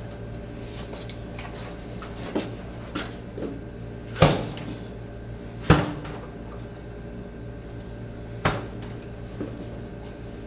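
Several sharp knocks and thuds at irregular intervals, the loudest about four and five and a half seconds in and another near the end, over a steady low hum.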